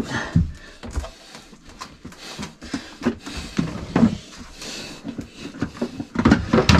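Irregular knocks, scrapes and rubbing as a stiff, stuck freshwater hose is tugged and twisted loose inside a wooden locker, the hose and fittings bumping against the panels.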